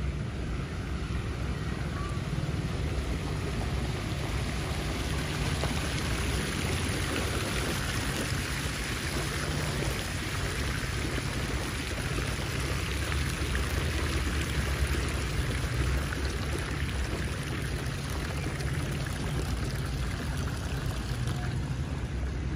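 Small fountain jets splashing into a shallow pool, a steady watery hiss that grows louder in the middle and eases off towards the end. A low rumble runs underneath.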